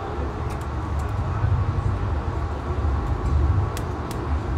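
Amtrak passenger train rolling along, heard on board: a heavy low rumble with a few sharp clicks.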